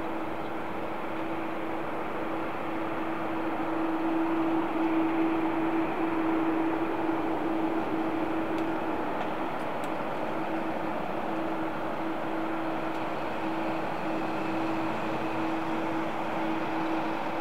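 Jet engines of a Boeing 787-8 Dreamliner running at low power, a steady hum with a constant tone, swelling slightly a few seconds in.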